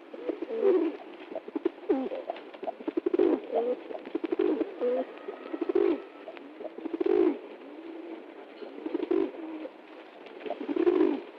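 Pigeons cooing: a series of low, throaty coos that bend in pitch, one every second or two.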